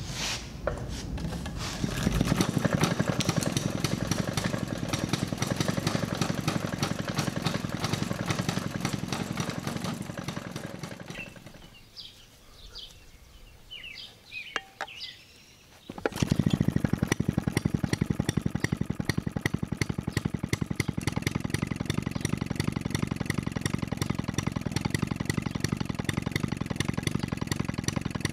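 1920s Jacobsen hit-and-miss engine running with rapid, even firing, its governor spring trimmed shorter to slow it. The engine stops, and about sixteen seconds in, after a rope pull, it catches at once and runs on with the same steady rapid firing.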